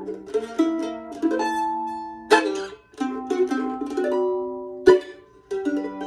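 Handmade F-style mandolin with a red spruce top and curly maple back and sides, picked in single-note runs and chords, with two sharp, louder strokes a little past two seconds in and near five seconds. The instrument is brand new, under string tension for only about an hour and not yet broken in.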